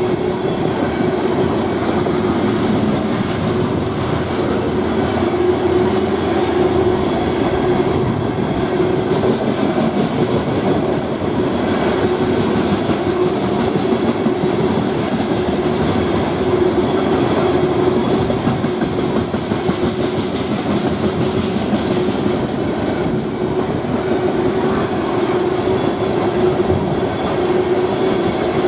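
Freight train rolling steadily past the crossing: a continuous rumble and rattle of steel wheels on rail from the passing cars.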